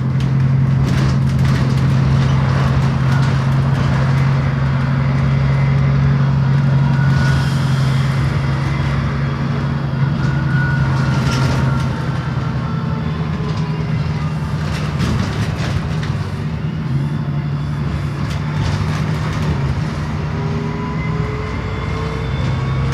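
Alexander ALX400 double-decker bus with its engine running in a steady low drone, which drops and shifts in pitch about halfway through. A rising whine comes near the end.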